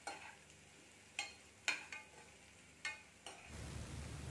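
A spatula stirring sprouted green gram in a kadai: a few short scrapes against the pan, roughly a second apart. A faint steady hum starts near the end.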